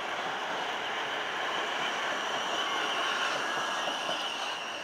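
South West Trains Class 450 Desiro electric multiple unit moving past along the platform. Its running noise is steady, with a continuous high whine over the rumble, and it eases off slightly near the end.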